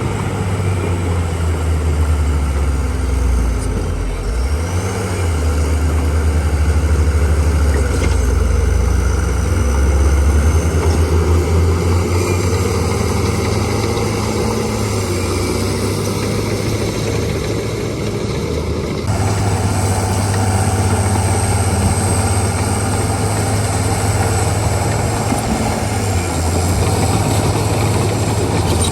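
Diesel engine of heavy earthmoving machinery running and working, its low engine note rising and falling with load. A faint high whine wavers in pitch over it, and the sound changes abruptly about two-thirds of the way through.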